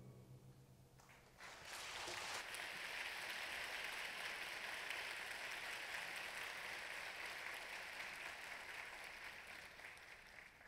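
Audience applause in a concert hall, starting about a second and a half in, holding steady at a fairly low level and fading out near the end.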